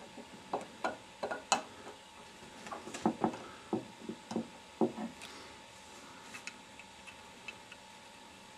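Irregular small clicks and clinks of a steel thread alignment tool being screwed into a 14x1mm left-hand threading die in its die stock, with the tools knocking lightly against a wooden tabletop. There are about a dozen clicks over the first five seconds, then only a few faint ticks.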